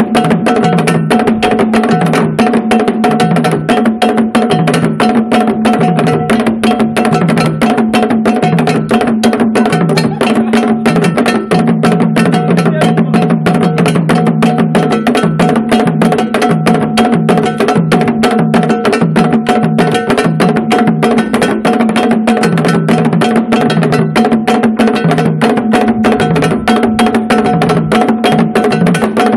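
African drum ensemble playing a continuous fast rhythm: four rope-tensioned, pegged wooden barrel drums struck with curved sticks and bare hands, with a high struck hand-held part clacking on top.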